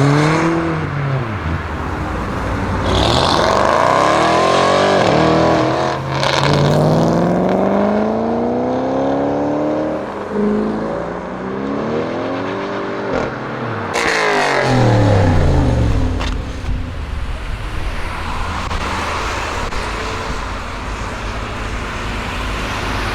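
Audi RS6 Avant C7's twin-turbo V8 through a Milltek exhaust accelerating hard, its note climbing in pitch in several long sweeps through the gears. There are two sharp cracks, and the note drops steeply as the car goes by, leaving steady road noise.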